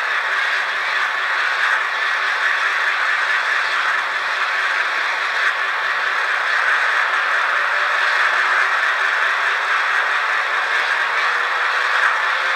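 N-scale FP9 model diesel locomotive making a steady, rattly engine-like sound, with a faint tone slowly rising in pitch over the last few seconds.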